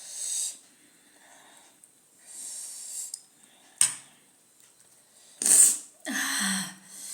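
A woman hissing and puffing air in short breathy bursts through her mouth from the burn of extra-spicy noodles, with a sharp click near the middle and a loud, sharp breath burst about five and a half seconds in.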